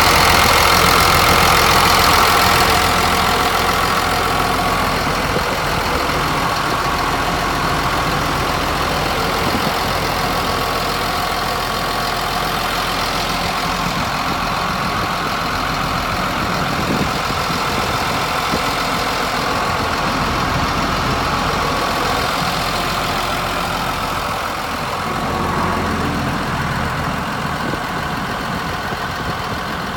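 Caterpillar D5N crawler dozer's diesel engine running steadily, easing slightly in level after the first couple of seconds and swelling briefly near the end.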